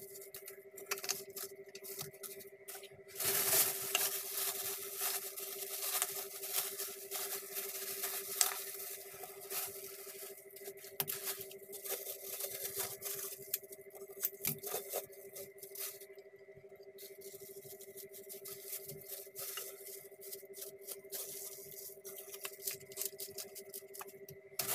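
Plastic wrapping crinkling and rustling as it is handled and pulled off by hand, in short crackly bursts, loudest from about three and a half seconds in, over a steady faint hum.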